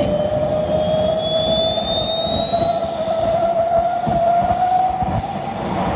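Small hobby jet engine running loudly, a strong whine over its roar rising slowly in pitch.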